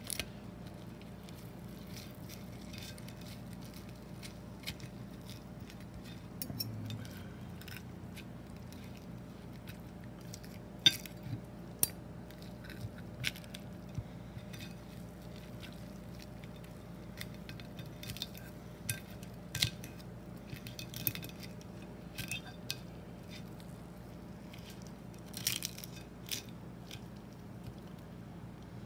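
Metal knife and fork clinking and scraping against a ceramic dinner plate while cutting and flaking a baked salmon fillet, in scattered short clicks, over a steady low hum.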